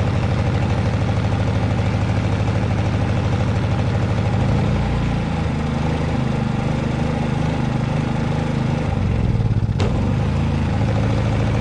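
Predator 3500 inverter generator's 212cc single-cylinder overhead-valve engine running, warming up after a cold start on choke. Its note shifts and wavers for a few seconds midway, then settles, with a sharp click near the end as the control dial is turned.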